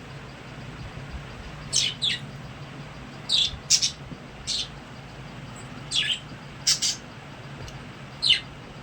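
Budgerigars chirping: short, high calls every second or so, some in quick pairs, over a low steady hum.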